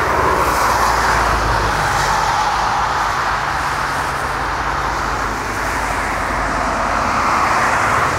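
Jet engines of a taxiing narrow-body twin-engine airliner running at low taxi thrust: a steady rush with a low rumble underneath, dipping slightly about five seconds in.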